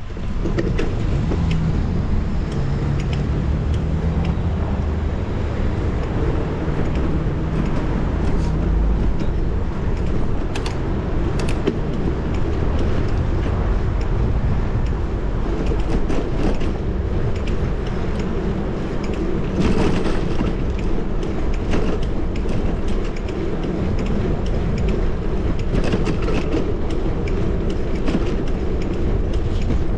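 Steady rumble of riding a bicycle along city streets, with motor traffic going by. Short clicks and rattles come through, and a brief louder swell of passing noise about two-thirds of the way in.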